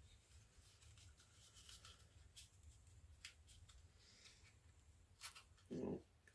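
Faint, scattered scratching and clicking of a small cardboard box being picked at to break its seal, over a low steady hum, with a brief vocal sound near the end.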